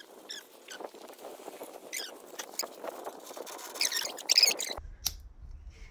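Paper being crumpled and rustled, as when stuffing it into a barbecue to light the charcoal: a dense crackling with a few short high squeaks, loudest about four seconds in, then it stops suddenly.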